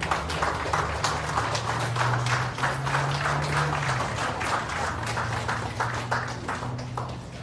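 A crowd clapping and applauding, the clapping thinning out near the end.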